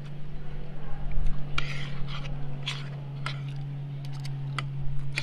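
A metal spoon and fork scraping and clinking against a ceramic plate, about half a dozen short strokes, over a steady low hum.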